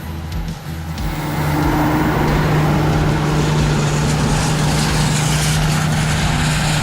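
AGCO Challenger MT975B tractor's 18.1-litre engine running steadily, a constant drone that grows louder about a second in.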